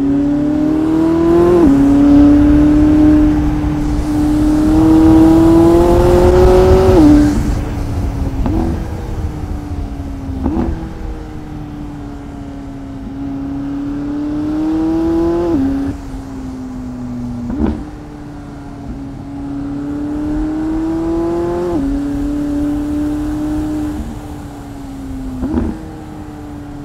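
McLaren 675LT Spider's twin-turbo V8 pulling under load. Its pitch climbs and then drops sharply at each of several upshifts, and it is loudest in the first third. A few short sharp cracks come between the shifts.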